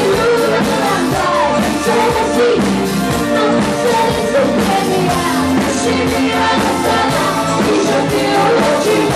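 Live pop-rock band playing through a club PA, with a female lead voice singing over a steady drum beat, guitars and keyboards.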